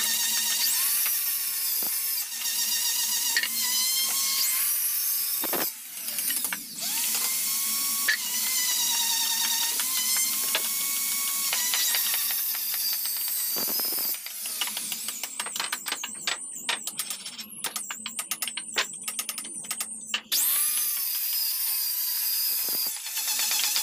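Handheld circular saw running at high speed as it cuts a rebate along a timber window-frame member, its whine sagging under load and recovering, with brief stops. For several seconds past the middle the whine gives way to a fast chattering rattle, then the saw starts up again with a rising whine near the end.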